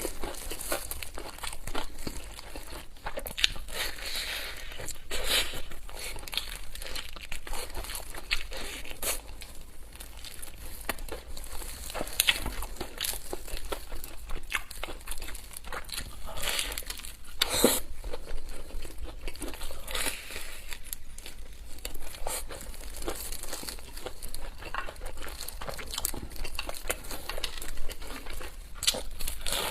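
Continuous crinkling and rustling of the wrapping around a takeaway fried chicken being handled and torn open, with many sharp crackling clicks throughout.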